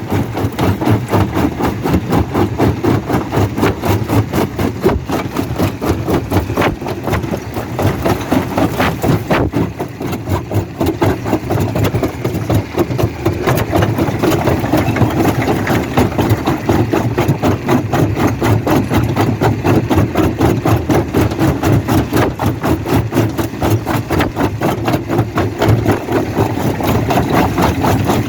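Quarry rock crusher running steadily under its engine, with a fast, even pulsing.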